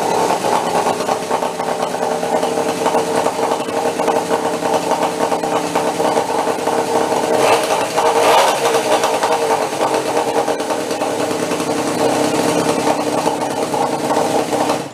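Small gas engine of a motorized bicycle kit running steadily, with a brief rise in revs about eight seconds in. It cuts off abruptly at the end.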